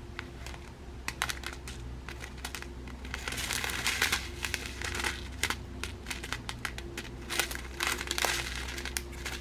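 Plastic packets of diamond-painting drills crinkling as they are handled, in irregular bursts of crackling, over a faint steady low hum.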